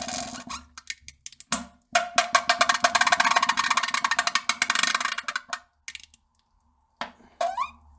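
A run of fart sounds. A sputtering string of short pops is followed by one long, rapidly flapping fart of about three and a half seconds. A short fart with a rising pitch comes near the end.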